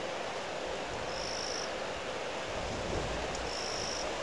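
High wind blowing over the outdoor microphone in a duststorm, a steady rushing hiss, with gusts buffeting the microphone in low rumbles from about halfway in. A short, thin, high note sounds twice, about two seconds apart.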